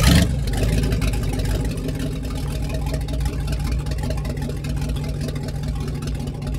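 Motorboat engine running at a steady idle, coming in abruptly at the start.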